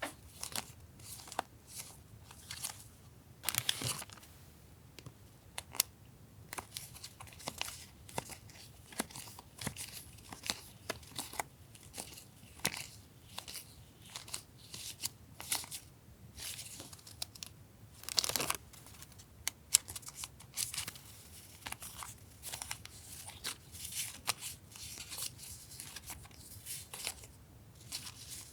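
Paper goods and their packaging being handled: scattered crinkles, taps and rustles, with longer swishing rustles about 4 s and 18 s in.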